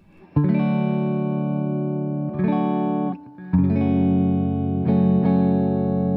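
Gibson Les Paul electric guitar played through a DC-Comp compressor pedal (a Ross-style compressor) with some clean blend mixed in, into a Fender Deluxe Reverb reissue amp. Chords are struck three times and ring on at a nearly even level; the blended clean signal brings back the pick attack that full compression takes away.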